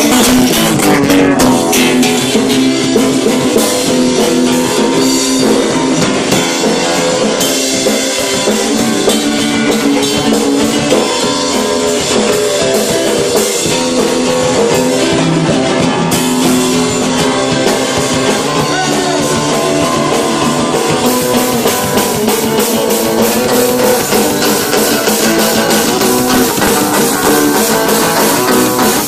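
Live rock band playing loud and without a break: an amplified acoustic-electric guitar, bass guitar and drum kit.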